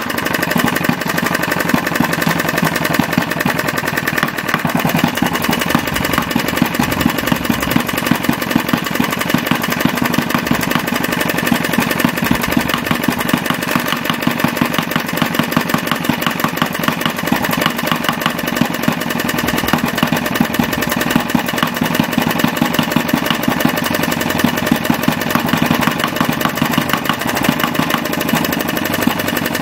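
Retrol 16cc single-cylinder model diesel stationary engine, with mechanical fuel injection and compression ignition, running steadily on pump diesel. Each firing stroke makes a sharp beat in a rapid, even rhythm.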